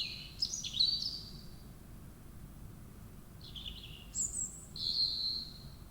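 A bird calling in two bouts of high chirps. Each bout has quick notes gliding down in pitch and ends in a longer, steadier whistle.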